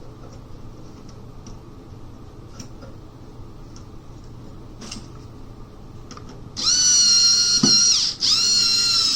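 Cordless electric screwdriver whining in two runs of about a second and a half each, starting about six and a half seconds in. The pitch sags slightly as each run ends and the screw seats; the screw went in not threaded right. Before that, faint small clicks of handling.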